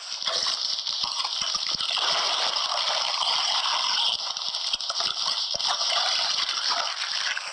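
Gift wrapping being crinkled and torn as a present is opened: a dense, continuous rustle with many small crackles.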